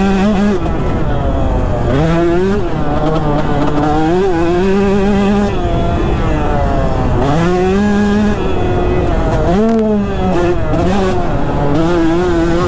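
KTM 150 SX two-stroke single-cylinder dirt bike engine, heard from on the bike while riding. It revs up and falls back about every two to three seconds as the throttle is opened and rolled off through jumps and corners.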